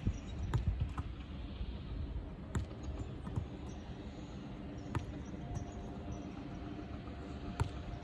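Soccer ball being tossed up and trapped on artificial turf: several sharp thumps a second or more apart as the ball meets hands, foot and ground, over a low steady background rumble.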